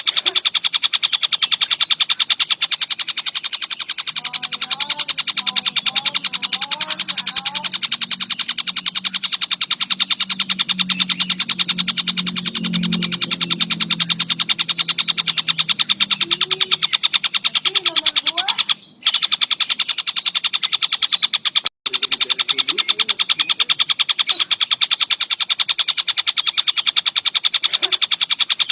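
Tengkek buto kingfisher calling in a fast, unbroken chatter of rapid repeated high notes, with two short breaks about two-thirds of the way through. Fainter bird calls and a low hum sit underneath for a while.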